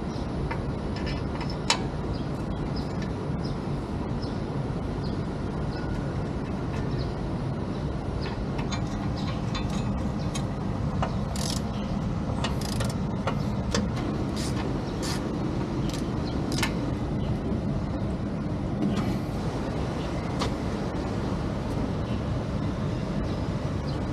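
Steady low vehicle rumble, with scattered light clicks and taps over it.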